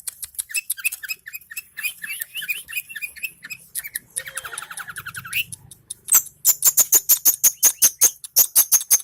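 Long-tailed shrike (cendet) singing: a rapid, varied run of short chirps and clicks, then from about six seconds in a louder, fast string of sharp notes, several a second.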